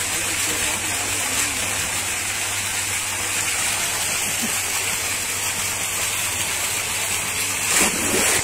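Tubewell water gushing steadily from its outlet pipe into a concrete tank and spilling over into the pool below, with a louder splash near the end.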